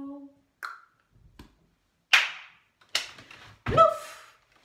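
Five body-percussion 'plouf' hits, about one every three-quarters of a second, getting louder toward the end. A short rising cry comes with the last and loudest hit.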